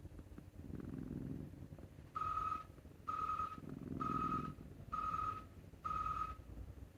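Scottish Fold cat snoring: two low snores about three seconds apart. Over the second half come five evenly spaced high electronic beeps, each about half a second long and about one a second, louder than the snoring.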